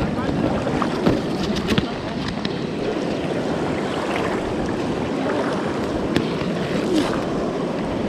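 Shallow, muddy floodwater flowing and splashing steadily around wading legs, with a few short sharper splashes.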